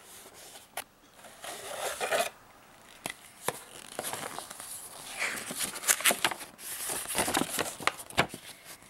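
Cardboard toy box being opened and a folded paper playmat pulled out and unfolded: irregular paper rustling and crinkling with scattered small clicks and scrapes, busiest in the last few seconds.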